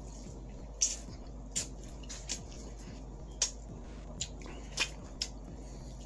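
A person chewing and smacking on corn on the cob: about seven wet smacks and clicks, spaced out, over a faint steady low hum.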